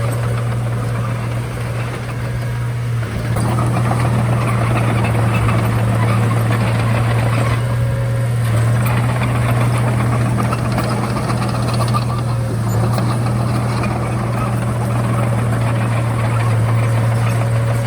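Komatsu D31A bulldozer's diesel engine running steadily with a deep, constant drone, easing briefly a couple of times as the load changes.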